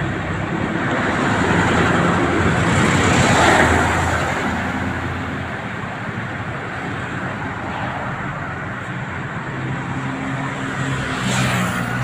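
Road traffic passing close by, with vehicles going past and the loudest pass about three and a half seconds in.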